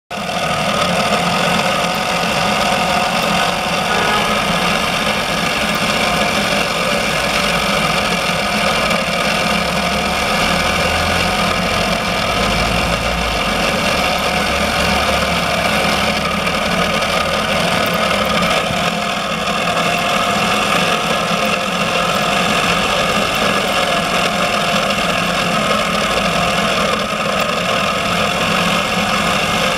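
Meccano model of a horizontal steam engine running steadily: the small electric motor that drives it and its metal crank and piston-rod linkage make an even mechanical whir.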